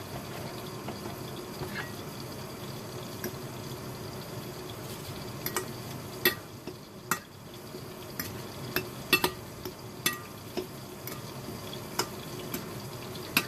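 Metal fork mashing guacamole on a ceramic plate. From about halfway through, the fork knocks against the plate in sharp clinks every half second to a second. Under it is a steady hiss of bell peppers steaming in a lidded pan.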